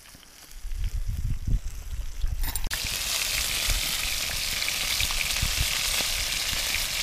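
Cod fillets and cod tongues sizzling in hot oil in a cast iron pan over an open fire. The sizzle is a steady dense hiss that starts suddenly about two and a half seconds in; before it there is only a low rumble.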